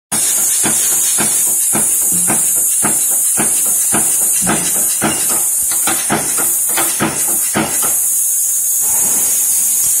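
Mechanical flywheel punch press stamping a steel strip for deadbolt lock parts, striking about twice a second, then stopping about eight seconds in. A steady high hiss runs under the strokes.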